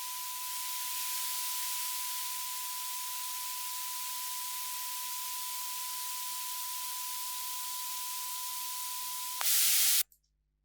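Steady white noise hiss, turned down by a sidechain compressor keyed from a steady sine tone near 1 kHz that sounds along with it. About nine and a half seconds in, the tone stops and the noise jumps louder as the compression lets go, then both cut off suddenly about half a second later.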